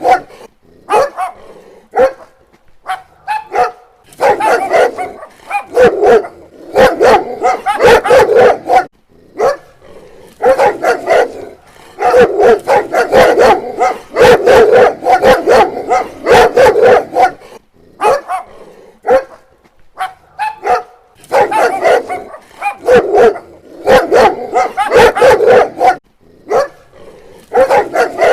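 Dog barking in rapid flurries of short, sharp barks, with brief pauses between the flurries.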